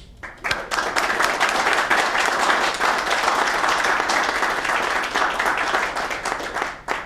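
Audience applauding: a dense round of hand clapping that starts just after the opening and cuts off abruptly near the end.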